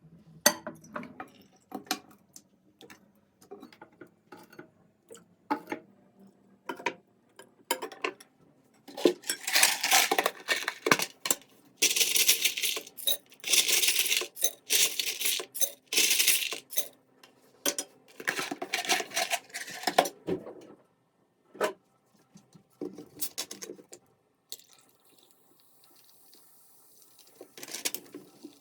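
Kitchen tableware being handled: metal utensils clinking and scraping against dishes in a string of sharp knocks, busiest through the middle stretch.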